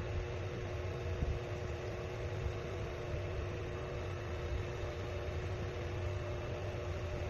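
Steady machine-like hum and hiss with a few faint steady tones, unchanging throughout; no Morse code beeps.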